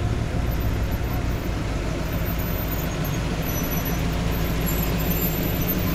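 Engine of a mid-1950s Ford Fairlane Victoria running steadily at low speed as the car rolls up and past.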